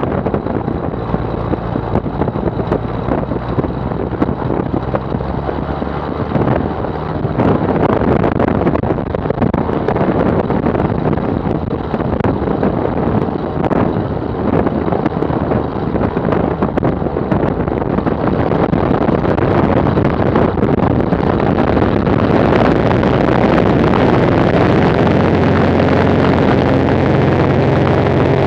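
Maule M7-260 amphibian's six-cylinder piston engine and propeller running while taxiing, heard through wind buffeting on an outside-mounted microphone. The engine grows louder and steadier about three-quarters of the way through as power comes up on the runway.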